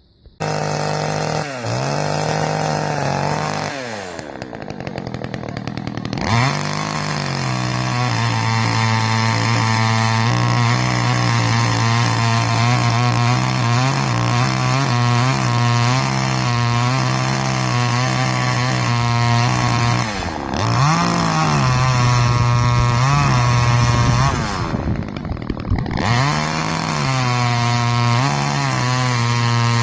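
Two-stroke gasoline chainsaw running at high revs while cutting small pine trees. The engine pitch repeatedly sags and climbs back, and it drops off briefly twice before revving up again.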